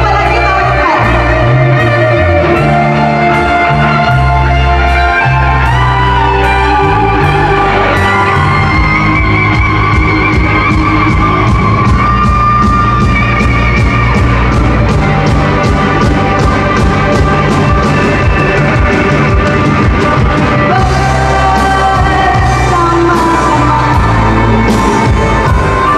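A live rock band playing a pop-rock song: a woman singing lead over electric guitars, electric bass guitar and a drum kit with a steady cymbal beat.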